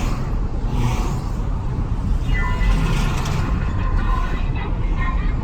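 A car driving on a road: steady low road and engine rumble, with a few faint high tones about halfway through.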